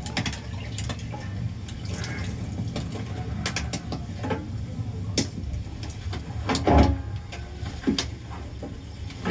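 Scattered clicks and soft knocks of cooked idlis and their cloth-lined steamer plates being handled and lifted from large steaming pots, over a steady low rumble.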